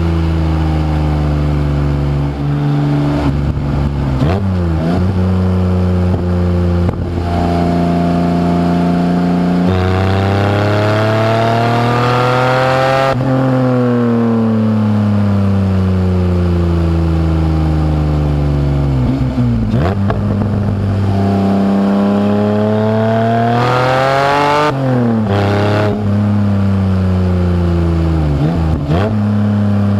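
Roots-type supercharged Toyota 1MZ-FE 3.0 L V6 in a mid-engine MR2, driven hard through a five-speed gearbox. The revs climb and fall several times, with sharp dips at the gear changes before the engine pulls again.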